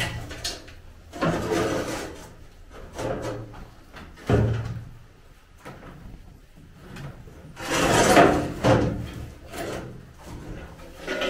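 Timber formwork being pried off a concrete slab with a long steel bar during un-shuttering: irregular wooden knocks, creaks and scrapes, the longest and loudest about eight seconds in.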